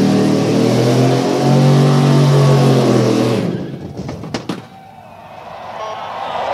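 Chevrolet K10 pickup's engine held at high revs during a burnout, with the hiss of the spinning tire. About three and a half seconds in, the engine note drops off sharply, followed by a couple of sharp clicks.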